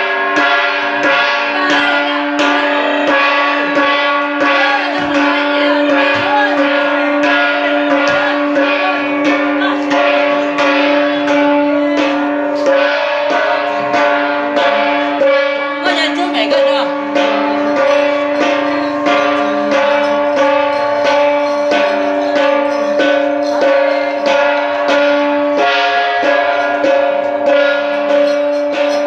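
Hmong shaman's hand gong beaten in a steady, fast rhythm for a ua neeb ceremony, each stroke ringing on so that its tones hang over the whole passage.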